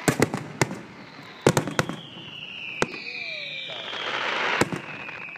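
Aerial fireworks shells bursting in sharp bangs, several in quick succession near the start and again about a second and a half in, then single bangs later. A long high whistle falls slowly in pitch through the second half, with a swell of crackling just before the last bang.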